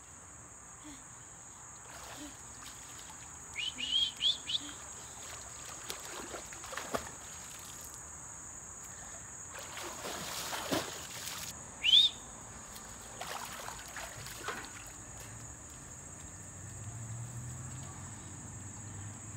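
Steady high chirring of crickets. There is a quick run of short rising chirps about four seconds in, and a single louder chirp about twelve seconds in.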